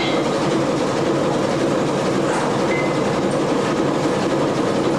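Steady mechanical rumble of a fishing boat's engine and deck machinery running.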